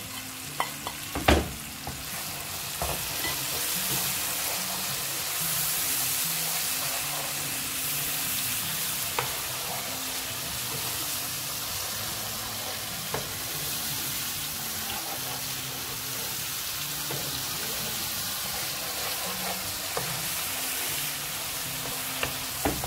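Onion-and-tomato curry base sizzling in hot oil in a frying pan as a wooden spoon stirs it, with scattered light taps of the spoon on the pan and one sharper knock about a second in.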